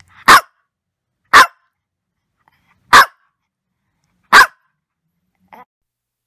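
A small long-haired dog barking: four loud, sharp single barks roughly one to one and a half seconds apart, then a fainter fifth one near the end.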